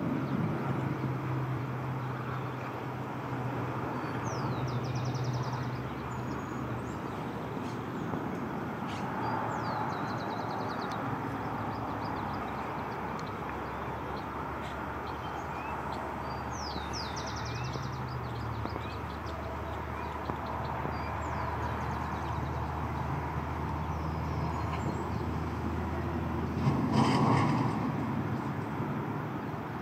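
Steady low rumble of distant road traffic, with short high bird chirps and trills breaking in every few seconds and a louder swell of noise near the end.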